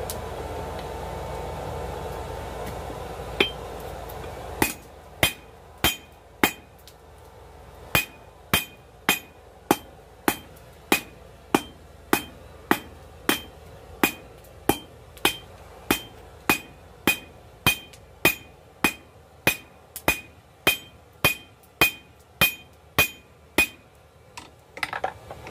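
Hand hammer forging hot coil-spring steel on an anvil: a steady run of sharp strikes, about three every two seconds, each with a short ringing ping. A steady rushing noise at the start stops about four and a half seconds in, just as the run of blows begins.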